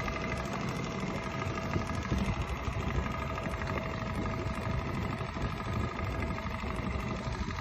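Boat's outboard motor idling steadily, a constant hum over a low rumble of wind and water.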